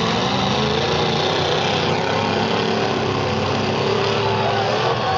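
Several demolition derby cars' engines running at once, a steady din with pitches that rise and fall as they rev.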